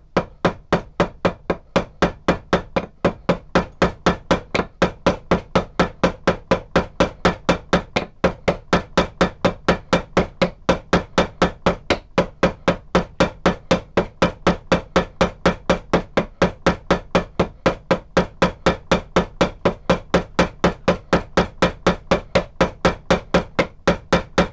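Large ball-peen hammer tapping on the ends of nails used as rivets, peening them over, at an even pace of about three or four light blows a second.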